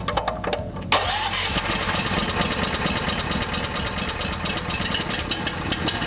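Grout Hog's small gasoline engine starting about a second in, then running with a rapid, even clatter.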